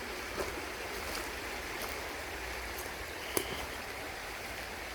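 River water running steadily, with a few short sharp clicks over it, the loudest about three and a half seconds in.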